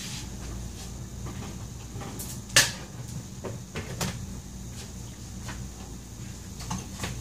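One sharp knock, followed by a few lighter clicks and taps, over a steady low hum.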